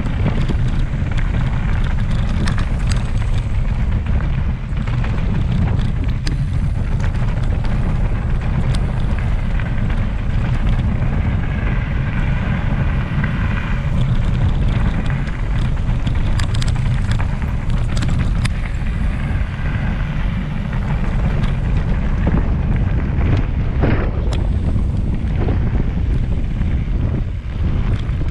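Heavy wind rumble on the microphone, steady and loud, with scattered sharp clicks and rattles throughout.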